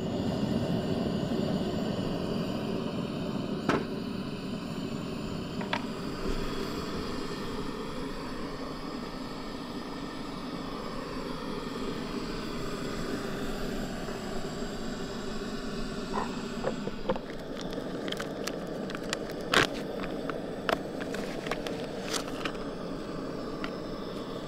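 Gas burner of a two-burner camp stove lit under a kettle, running with a steady low rush. A few light clicks and clinks in the second half.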